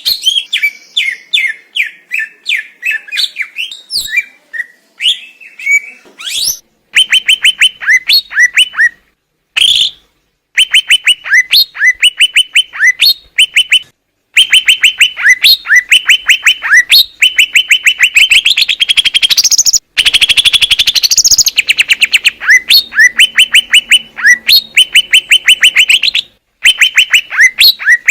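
Green leafbird (cucak ijo) singing loudly. The first few seconds are a run of varied chirps, after which it sings fast, rattling trilled phrases of clipped notes over and over. The song cuts off abruptly several times, as at splices between recordings.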